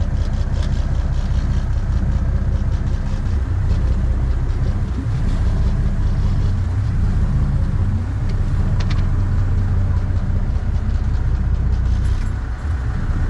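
Charter fishing boat's engine running steadily under way: a loud, even low drone.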